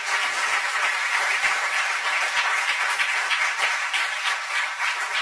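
Audience applauding: many hands clapping, holding a steady level throughout.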